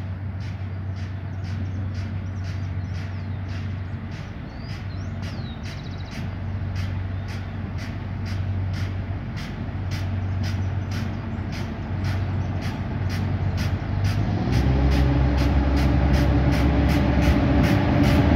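Diesel engine of a rail track maintenance vehicle running at a steady low drone as it hauls a loaded flatcar slowly toward the listener, growing louder and then much louder about fourteen seconds in as it comes close. A regular ticking runs through it at about two to three a second.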